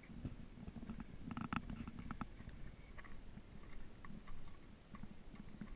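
Faint, irregular footsteps crunching and clicking on loose scree, over a low muffled rumble.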